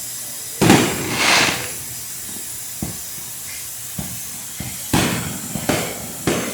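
Fireworks going off: a string of sharp bangs, the loudest about half a second in, followed by a hissing burst, then several softer pops and three more strong bangs near the end, each with a short fading tail.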